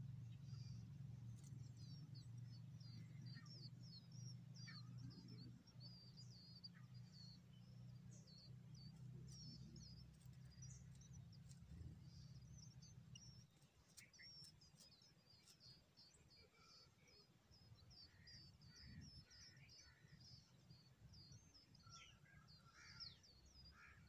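Faint, quick high-pitched cheeping of songbird nestlings begging in the nest: short thin calls in rapid succession. A low steady hum underneath stops a little past halfway through.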